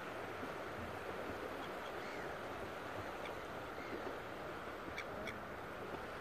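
Steady wash of wind and distant surf on an open beach, with a few faint short high calls, two in quick succession about five seconds in.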